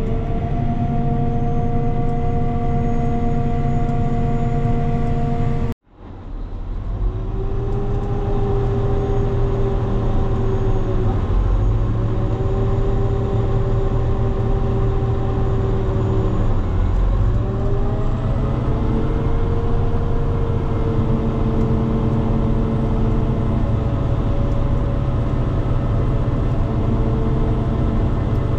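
Farm tractor's engine running steadily while towing the seeding rig, a droning hum whose pitch steps down and back up several times. About six seconds in it cuts out abruptly for a moment, then returns.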